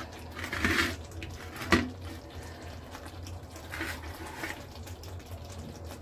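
Kitchen knife slicing a block of paneer on a plate, with one sharp click of the blade on the plate a couple of seconds in and softer scrapes later. Under it a steady low hum and soft watery hissing.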